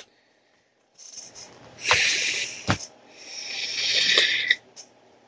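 Airy hissing of a draw on a box-mod e-cigarette: a breathy hiss with a couple of clicks about two seconds in, then a longer draw that swells over about a second and a half before cutting off.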